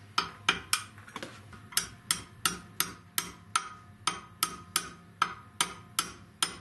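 Small hammer tapping a steel punch to drift a pistol's dovetailed front sight sideways into its tightly filed dovetail slot in the barrel. It makes a steady run of sharp taps, about two or three a second.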